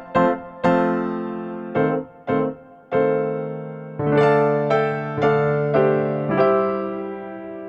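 Background music: an electric piano playing a gentle melody of separate notes, each struck and left to fade.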